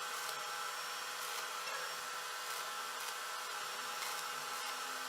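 Electric welding arc buzzing and hissing steadily as a bolt is welded onto a nut.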